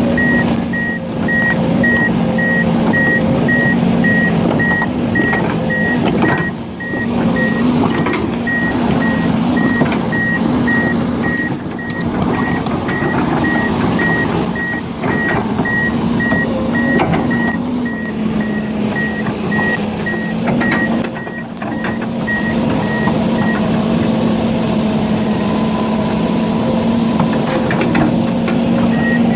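A heavy machine's reversing alarm beeping in a steady, even rhythm over its diesel engine running steadily. The beeping stops a few seconds before the end, then starts again.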